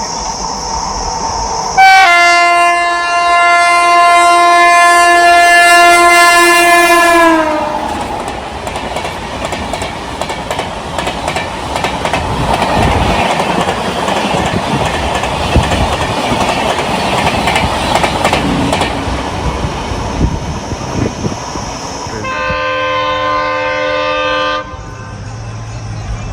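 Indian Railways express train running through a station without stopping. It starts with a long locomotive horn blast about two seconds in, whose pitch drops just as it ends. Then comes the steady rush and clatter of the coaches over the rail joints, and a second, shorter horn blast near the end.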